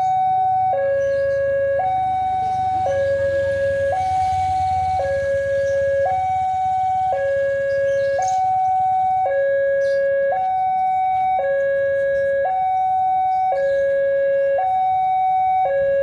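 Railway level crossing's electronic warning alarm sounding, a two-tone signal that alternates evenly between a higher and a lower tone, each held about a second. A low rumble swells and fades a few seconds in.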